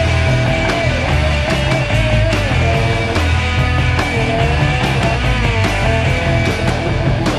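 Garage punk rock playing from a vinyl record on a turntable: a full band, loud throughout, with a held melody line that wavers and bends in pitch over a dense beat.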